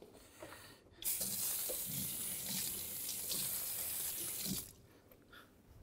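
Kitchen tap running as a knife handle is rinsed under it. The water comes on about a second in and shuts off suddenly some three and a half seconds later.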